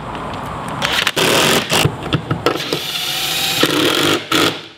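Cordless drill-driver running in several short bursts and one longer whining run, driving a bolt to fasten a climbing hold to the wall, then stopping abruptly near the end.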